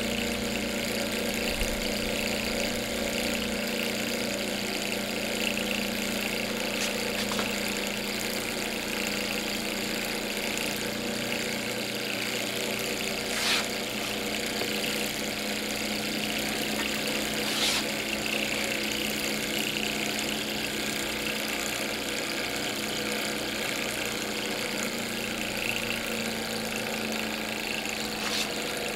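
Walking-beam Stirling hot air engine running steadily on ball bearings, belt-driving a small generator made from a computer disk-drive motor: a steady mechanical hum, with two faint clicks around the middle.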